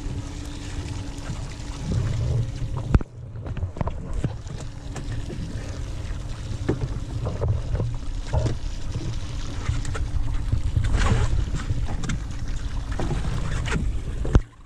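Fishing boat at sea: a steady low rumble with wind on the microphone, with scattered knocks and clicks. The sound briefly cuts out about three seconds in.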